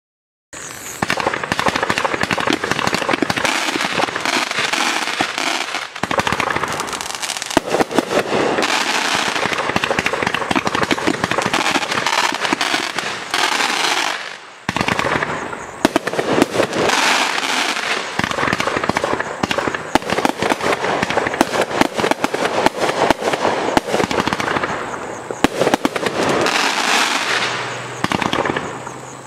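Legend Fireworks 'Big Daddy' 48-shot consumer fireworks cake firing in rapid succession: launches and bursts with dense crackling, almost without pause. It starts about half a second in and eases briefly about six and fourteen seconds in.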